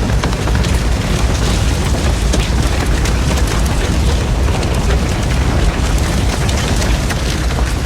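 Large structure fire burning with a deep steady rumble, dotted throughout with quick crackles and snaps.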